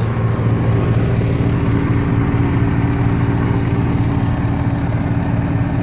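Massey Ferguson MF65 tractor's Continental G176 four-cylinder gasoline engine idling steadily at an even speed. The engine is badly worn, smoking heavily and bubbling oil out of its exhaust.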